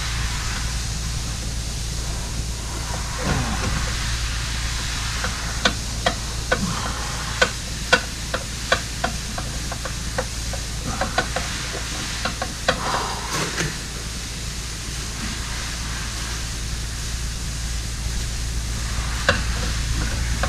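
Scattered light clicks and taps of hand work on a car's rear axle, bunched in the middle, over a steady background hum and hiss.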